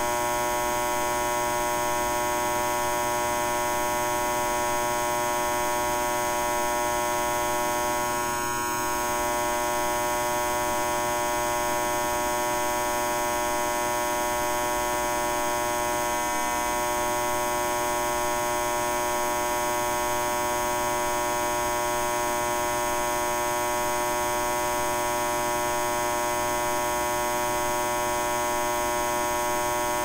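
Steady electrical hum made of many layered tones, unchanging except for a brief slight dip in level about eight seconds in.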